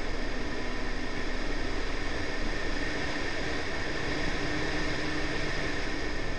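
Steady rush of wind and tyre-on-road noise from a Honda Civic driven at speed on track, picked up outside the car beside the front wheel, with the note of its 1.8 VTi B18C4 engine faint underneath.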